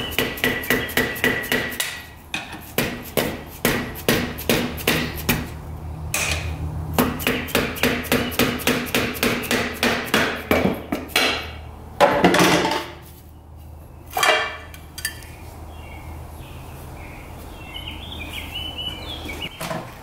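Rapid hammer taps, about four a second, on the Polaris Magnum 425's valve cover to break the stuck cover loose once its bolts are out. The tapping stops about halfway through, followed by two louder clunks as the cover is worked free.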